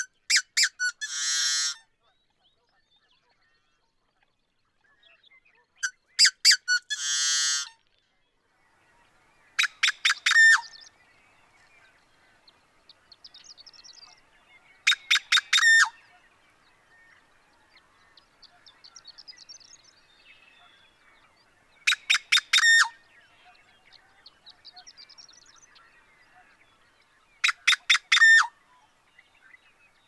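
Male yellow-headed blackbird singing six times, about every five seconds. The first two songs are a few sharp clicks followed by a long harsh buzz; the later four are quick series of clicky notes. Faint bird calls fill the gaps between songs.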